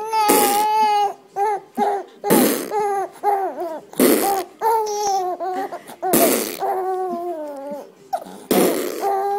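Five short fart noises, about two seconds apart, answered by a 3½-month-old baby boy's high-pitched squealing laughs and coos that waver in pitch.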